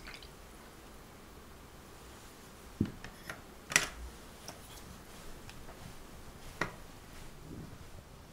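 Quiet kitchen handling sounds over room tone: a dull knock about three seconds in, then a sharp click just under a second later and another near seven seconds, as a small bowl and a hand whisk are handled against a glass mixing bowl of cheesecake batter.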